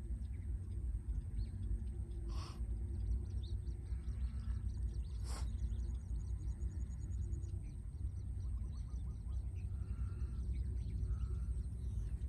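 Outdoor ambience: a steady low rumble with faint bird chirps, and two sharp clicks a few seconds apart.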